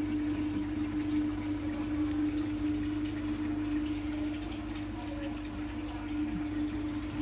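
Aquarium aeration and filter running: a steady hum with the bubbling of water from an air stone.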